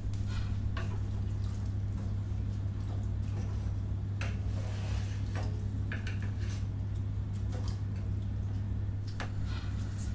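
Wooden spatula stirring beef trotters, marrow bones and onions in water in a pressure cooker pot. Liquid slosh and squish with scattered knocks against the pot, over a steady low hum.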